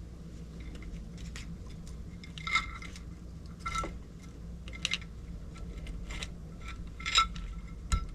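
Metal engine parts clinking and tapping together as the cylinder head of a Husqvarna FC250 four-stroke engine is fitted onto the cylinder: about five sharp clinks, several with a brief metallic ring.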